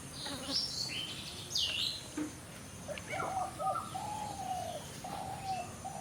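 Birds calling: a few quick high chirps in the first two seconds, then a run of short, evenly pitched lower notes from about three seconds in.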